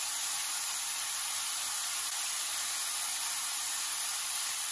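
Carrots frying in oil in a steel pan, a steady, even sizzling hiss.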